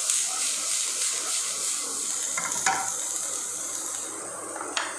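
Freshly added chopped onions, with garlic, ginger and green chilli, sizzling in hot oil in a frying pan as they are stirred. The sizzle gradually softens.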